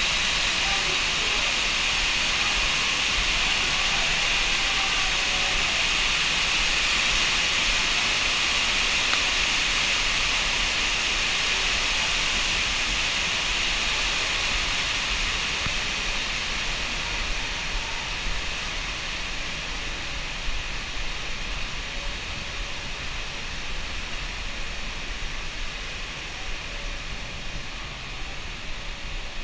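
Steady hiss of fog misters spraying water mist into a walkway tunnel, easing off somewhat over the second half.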